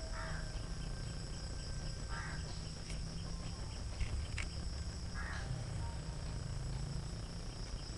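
A chorus of insects holding a steady high-pitched drone, over a low rumble of the handheld microphone moving. There is a sharp click about four seconds in.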